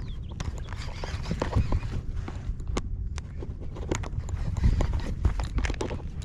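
Irregular clicks and knocks, like steps or gear handling, over a steady low rumble.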